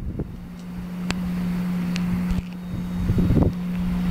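Boat motor idling with a steady low hum, with wind buffeting the microphone.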